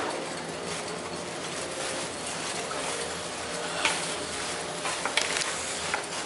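Steady hum and hiss of a ferry's interior running noise, with a few light clicks and taps about four seconds in and again around five to six seconds.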